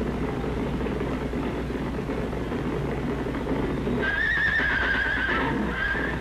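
Horse whinny sound effect from the Astrodome scoreboard's Home Run Spectacular, on an old film soundtrack. A wavering, warbling high call begins about four seconds in and comes back briefly near the end, over a steady noisy background and low hum.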